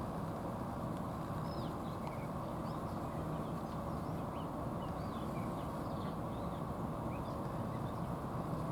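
Small birds chirping, many short high calls scattered over a steady low rumble of background noise.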